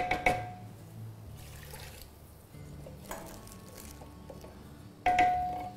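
Metal kitchenware struck: a clinking strike right at the start followed by a second, faint clatter in the middle, and a louder strike about five seconds in that rings with a clear bell-like tone before dying away.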